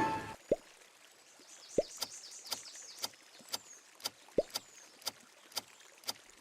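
Sound effect played as the Burger King logo sound: evenly spaced sharp clicks about two a second, with a few short rising plops and faint chirps early in the sound.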